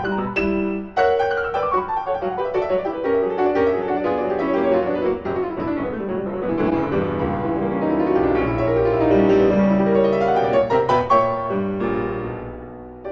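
Solo classical piano music playing quick rising and falling runs of notes.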